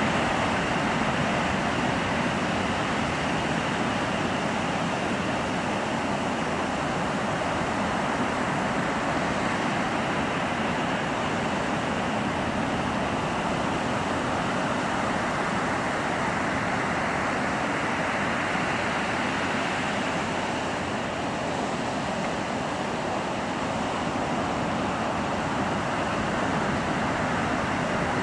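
Steady roar of breaking ocean surf with wind on the microphone.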